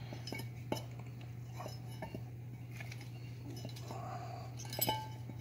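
Light metal clinks and taps as a wheel hub and its lug studs are handled, with a few sharper clanks near the end. A steady low hum runs underneath.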